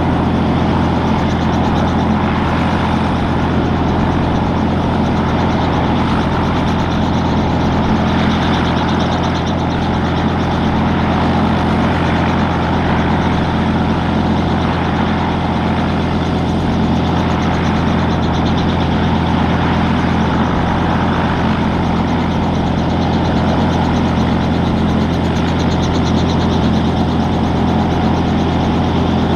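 Robinson R44 Clipper II helicopter running on the ground with its rotors turning during pre-flight checks: its Lycoming IO-540 six-cylinder engine and rotors make a loud, steady drone that does not change.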